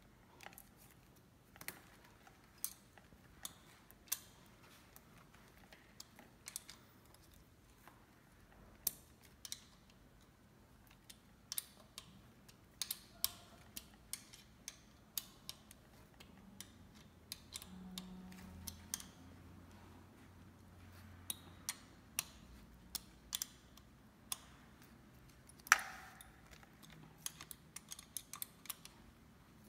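A wrench clicking and ticking against the bolts of an e-bike's handlebar stem clamp as they are tightened. The clicks are sharp and come at irregular intervals, with the loudest one near the end.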